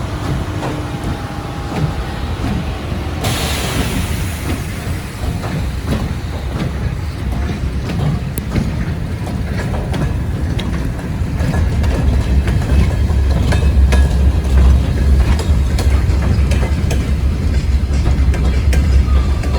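Freight train rolling past slowly, its wagon wheels clicking over rail joints. There is a brief hiss about three seconds in, and the low rumble grows louder about halfway through.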